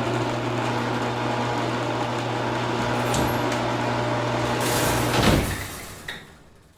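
Motorised garage door opening: the opener's motor runs with a steady hum and rattle as the door travels, then stops with a loud clunk about five seconds in, followed by a smaller click as the sound dies away.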